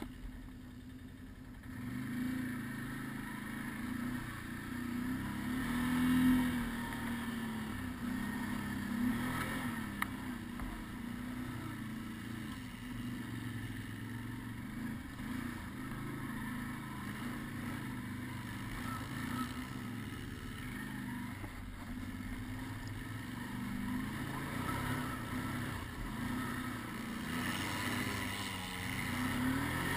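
Can-Am Outlander ATV engine running under way, its revs rising and falling as it is ridden; quieter for the first couple of seconds, a burst of revving about six seconds in, and climbing again near the end.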